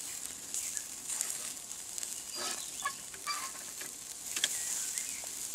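Pork ribs and skewered pork grilling over hot charcoal, with fat dripping onto the coals: a steady sizzle with scattered crackles and pops.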